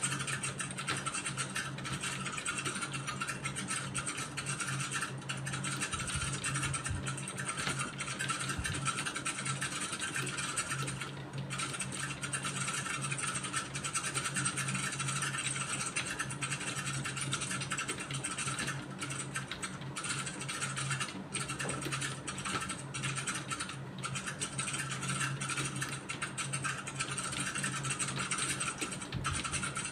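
Computer keyboard typed fast and continuously, a dense clatter of keystrokes with a few brief pauses, over a steady low hum.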